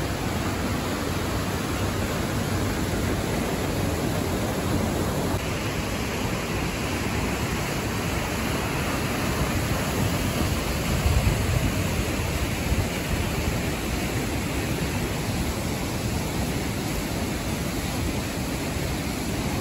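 Steady rushing of a waterfall and the water tumbling through its rocky creek. A brief low rumble about eleven seconds in.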